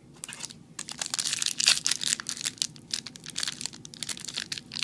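Foil Yu-Gi-Oh booster pack wrapper crinkling and crackling in a quick, irregular run as it is handled and pulled at to tear it open.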